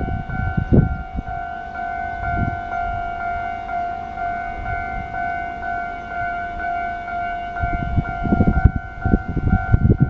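Japanese railway level-crossing warning alarm ringing, a pulsing electronic ding repeated over and over, as the crossing closes for an approaching train. Wind buffets the microphone at the start and again near the end.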